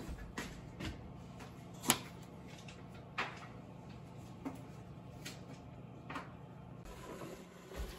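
A metal teaspoon clinking against a glass mug several times as sweetener is stirred in, at irregular intervals, the sharpest clink about two seconds in. A faint steady low hum lies underneath.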